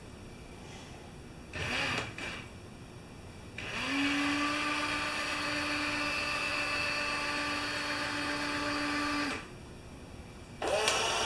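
Small electric motor of a scale electric fire truck running with a steady whine for about five seconds, starting a little under 4 s in and cutting off about 9.5 s in, with a short whir about 2 s in and the motor starting up again near the end.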